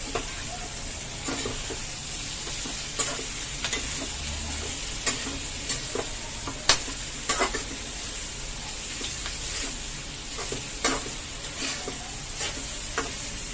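Spatula stirring and scraping boiled bitter gourd and onions around a steel kadai, with irregular clicks of the spatula against the pan over a steady low sizzle of frying.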